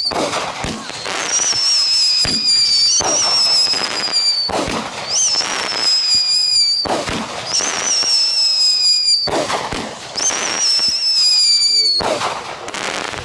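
Consumer firework firing a series of whistling shots: each shot is a high whistle that slides slowly down in pitch for a second or two and ends in a sharp bang. The shots come about every two seconds, about six in all.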